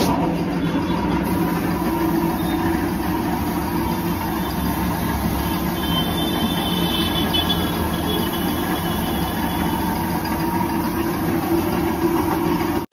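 Gravity-feed paint spray gun hissing as it sprays paint, over a steady mechanical hum.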